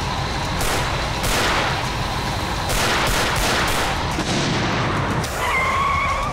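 Several pistol shots fired in quick succession over the sound of a vehicle. Near the end comes a short high squeal of tyres as the SUV speeds off.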